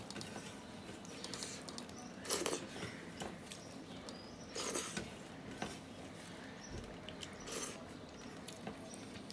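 Fingers mixing rice with thin snakehead fish curry on a stainless steel plate: soft wet squishes and light clicks, with a few louder squelches spread through.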